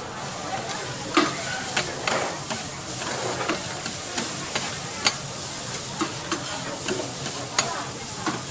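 Food sizzling as it fries in a hot pan, with a steady hiss, while a metal spatula stirs it, giving irregular clinks and scrapes.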